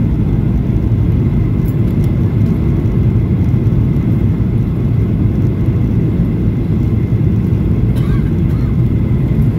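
Boeing 737-800 cabin noise on final approach with flaps extended: a steady low rumble of the CFM56 engines and rushing airflow.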